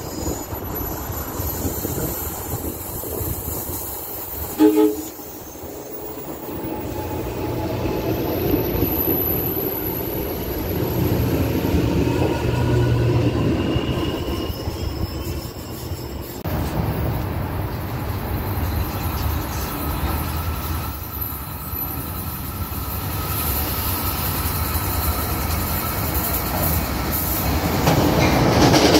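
NJ Transit electric commuter trains running through a station, with a steady rumble of wheels on the rails. A short horn toot sounds about five seconds in, and faint gliding whines come from the train in the middle stretch.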